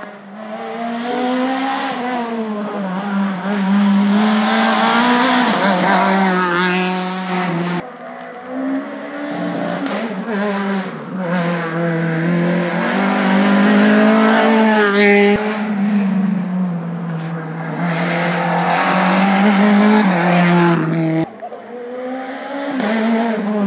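Rally car engine revving hard on a stage, its note climbing and dropping back again and again through the gear changes as it drives up the road.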